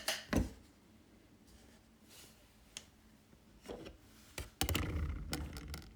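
A heavy brass mechanical pencil being set on a small digital scale: a few sharp clicks and taps with a quiet stretch between, then low handling and rustling near the end.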